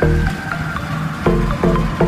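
Background music with a steady beat and repeated chords, without vocals.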